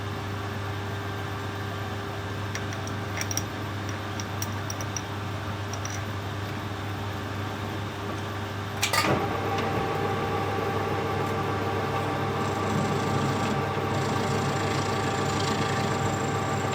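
Machine-shop motor running with a steady hum, most likely the metal lathe. About nine seconds in there is a sharp click, and a higher, steady whine joins the hum.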